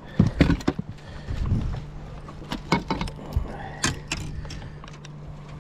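Handling noise as a just-landed crappie is unhooked over a rubber landing net in a boat: a run of sharp clicks, knocks and rattles, thinning out after about four seconds. A steady low hum runs underneath.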